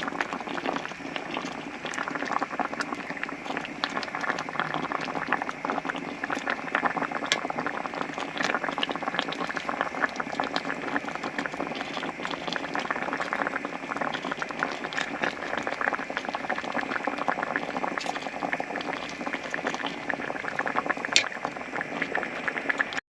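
Pot of braised pomfret bubbling at a boil in a seasoned rice-water broth, a steady dense crackle of bursting bubbles. It cuts off abruptly near the end.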